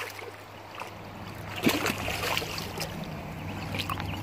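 Shallow river water splashing and gurgling as a dog pushes its head under the surface to grab a carp, with a louder splash about a second and a half in.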